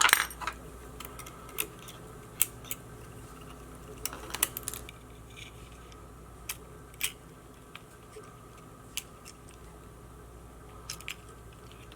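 Small hand tools clicking and tapping on the parts of a small action camera as it is taken apart. The clicks are scattered and sharp, with a cluster right at the start and another about four seconds in. A faint steady low hum runs underneath.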